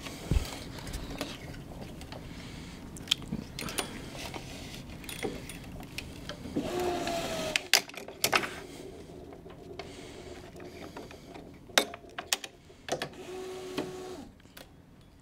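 Tennis string being woven through a racquet's main strings and pulled through by hand, with rubbing and a brief squeak as the string slides through, and light clicks of handling on the racquet and stringing machine.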